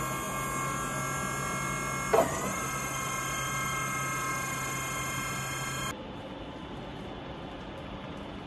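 Electric forklift's hydraulic pump motor whining steadily as the mast lifts the forks. About two seconds in the pitch dips briefly with a knock, then recovers. The whine cuts off suddenly about six seconds in as the lift stops.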